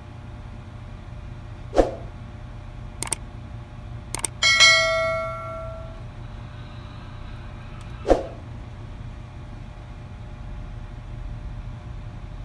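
Subscribe-button animation sound effects: short pops and clicks, then a bright notification-bell ding that rings out for about a second and a half, over a steady low background rumble.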